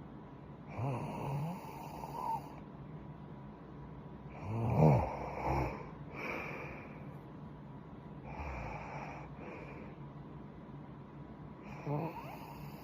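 A girl snoring in her sleep: about five uneven snoring breaths, the loudest about five seconds in.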